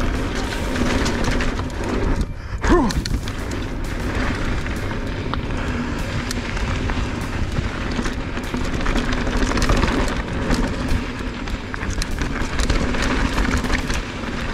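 2020 Orbea Rallon mountain bike descending a dirt jump trail at speed: tyres rolling over the dirt, the bike rattling and knocking over bumps, with wind rushing over the camera. About two seconds in there is a short lull, followed by a hard thump from a landing.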